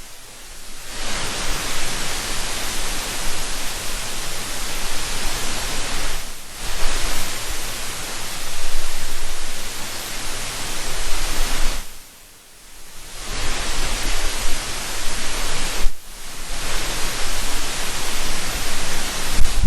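Loud, even hiss like static that drops away briefly three times, about six, twelve and sixteen seconds in.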